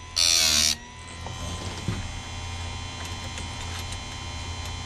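Electric chain sharpener's grinding wheel grinding a saw-chain tooth, cutting off under a second in. The motor then runs on with a steady hum, the wheel spinning free, with a light click about two seconds in.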